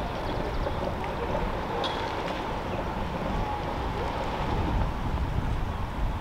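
Wind buffeting the microphone: an irregular low rumble over steady outdoor background noise, with a faint steady hum.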